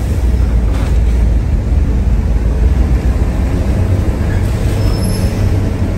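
Steady low rumble of heavy diesel engines on a ferry's car deck, a dense continuous drone with no breaks.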